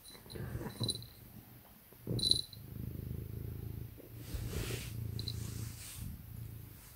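Domestic cat purring, a low, steady rumble close to the microphone. A brief sharp sound cuts in about two seconds in.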